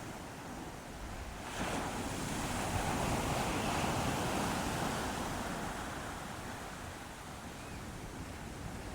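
Ocean waves breaking: a wave crashes about one and a half seconds in, and its wash swells for a few seconds and then slowly fades.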